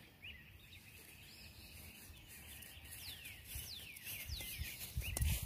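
Wild birds chirping: a run of short, separate chirps, some arched and some falling in pitch, with a faint low rumble that grows near the end.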